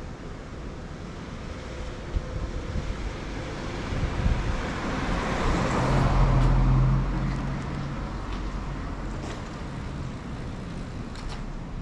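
A motor vehicle passing along the street, its engine and tyre noise swelling to a peak about six seconds in and then fading, over steady background traffic noise.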